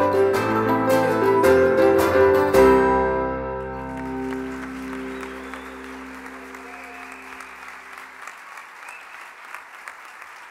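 Acoustic guitars strumming the last bars of a song, ending about three seconds in on a final chord that rings out and fades over several seconds. The audience starts applauding as the chord dies away, and the applause fades down near the end.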